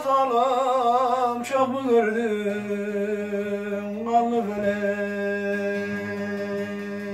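A man sings a Turkish folk song in a long melismatic line with wavering vibrato, gliding downward and then holding one steady low note from about two seconds in. His bağlama (long-necked saz) accompanies him softly.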